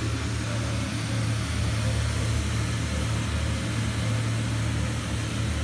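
Electric air blower keeping an inflatable bouncy castle inflated, running steadily with a constant low hum and rushing air.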